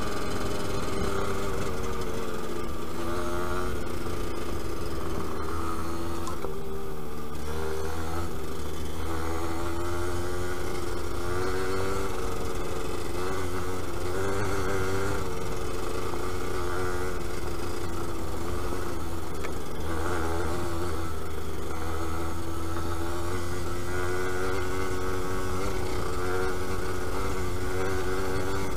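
Yamaha DT125 YPVS two-stroke single-cylinder engine being ridden, its note rising and falling over and over with the throttle.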